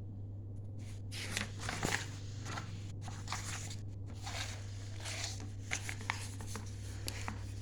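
Light, irregular rustling and scratching of paper being handled, over a steady low electrical hum.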